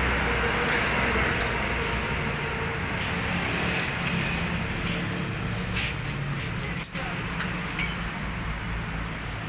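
Steady background traffic noise, with a few light metallic clicks as the welding gas cylinder's valve and regulator are handled.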